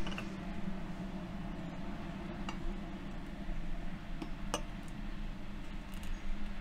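A few light clinks of glass ramekins, about two seconds apart, over a steady low background hum.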